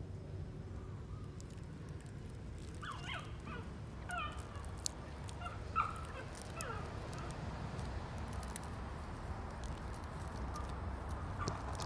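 Young puppy whimpering: a string of short, high whines and squeaks, some sliding down in pitch, through the middle few seconds.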